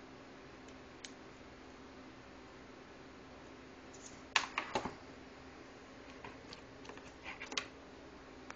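Sharp clicks and taps of hard costume pieces being handled and set down on a desk: a quick cluster near the middle and a looser group near the end, over a steady low hum.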